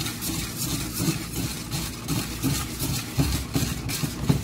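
Wire whisk beating a thick cream mixture in a metal pot by hand, a quick run of repeated strokes.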